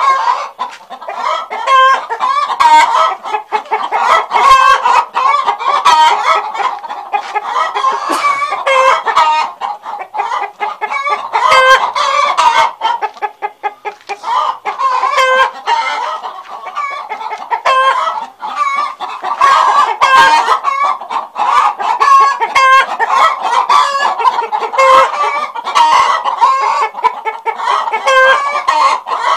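Domestic chickens clucking and cackling in a dense, continuous stream of short, overlapping calls.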